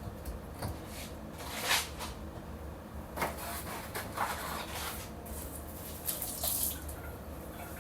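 Household cleaning noises: a few brief scrapes and rustles over a low steady hum.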